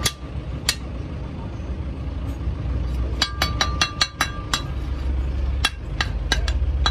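A hammer striking steel in short ringing clinks: one tap, then a quick run of about seven taps in the middle, then several spaced taps near the end, while a new brake lining is fitted onto a Hino truck brake shoe with rivets. A steady low rumble of an idling engine runs underneath.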